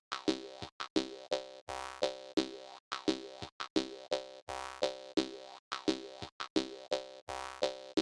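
Jaw harp music: a quick, steady, danceable rhythm of plucked twangs, about three to four a second, with a deeper note every few seconds.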